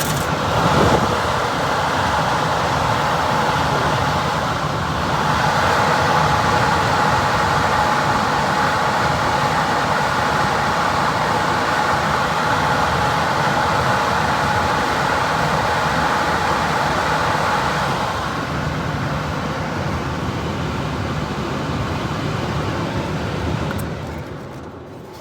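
Air handler blower motor running after being switched on through a jumper: a loud, steady rush of moving air with a steady hum, dying down near the end. The motor runs on a weak run capacitor that reads 10 microfarads against its 12.5 rating.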